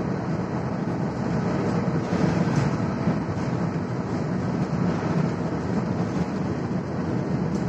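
Steady road and engine noise of a vehicle driving through a road tunnel, heard from inside the cabin, with a deep, even rumble.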